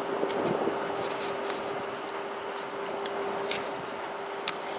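A steady hum holding one pitch under a background hiss, with scattered light ticks and rubs close to the microphone, the sharpest about three and a half and four and a half seconds in.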